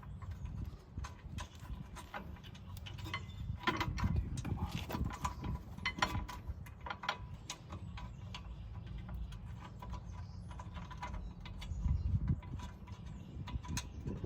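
Ratchet wrench clicking in short runs, with metal tools clinking, as brake caliper mounting bolts are run in and tightened.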